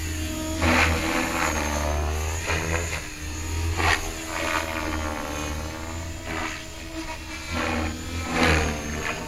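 Align T-Rex 550 electric RC helicopter flying 3D manoeuvres: a continuous motor and rotor whine whose pitch swings up and down, with sharp loud rotor swooshes several times as the collective pitch is loaded and unloaded.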